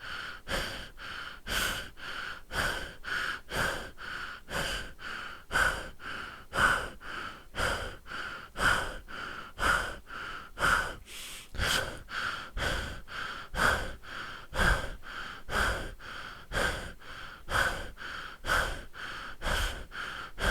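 A person breathing heavily through the mouth, with audible in and out breaths about once a second in a steady, unbroken rhythm.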